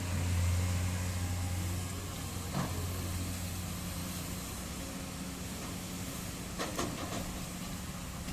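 Diesel engine of heavy construction machinery running steadily with a low hum, with a few short metallic knocks about a third of the way in and again near the end.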